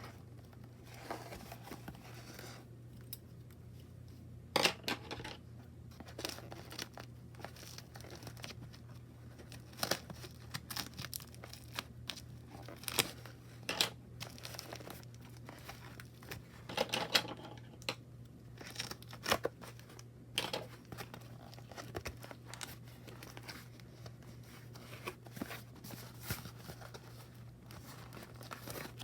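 Hands unboxing a card deck: irregular tearing, crinkling and scraping of packaging, with many sharp clicks and short swishes.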